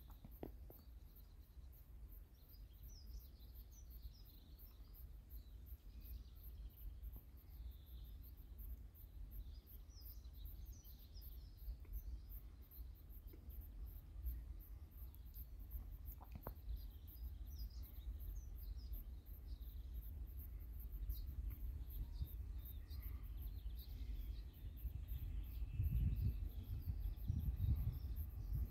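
Faint outdoor ambience: scattered small bird chirps over a low steady rumble, which grows louder near the end.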